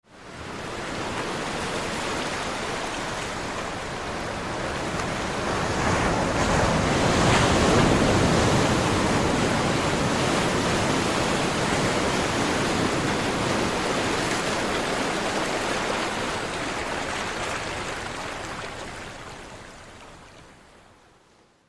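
Sea surf: a broad, even wash of waves that fades in, swells to its loudest about a third of the way through, and slowly dies away near the end.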